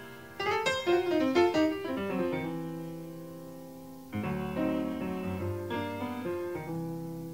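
Background music on a keyboard instrument: a quick series of notes in the first two seconds, then a new chord struck about four seconds in that slowly fades.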